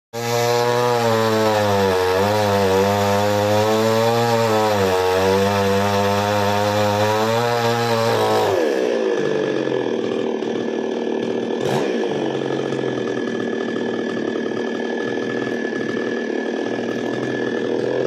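Chainsaw engine running at high revs while cutting branches, its pitch sagging twice under load. About eight seconds in the throttle is let off and the pitch falls as it settles to a lower idle, with one sharp click a few seconds later.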